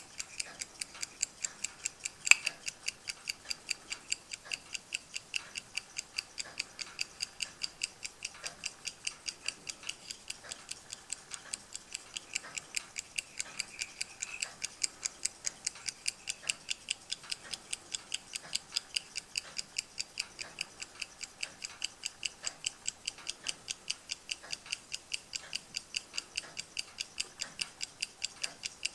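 Roskopf Patent pin-lever pocket watch ticking steadily, about five ticks a second. One louder click stands out a couple of seconds in.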